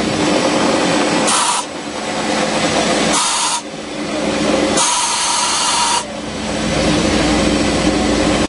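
Portable CNC milling machine running and cutting steel in a flange bore, a steady machine sound with several steady tones. It is broken three times by bursts of high hissing, the last lasting about a second.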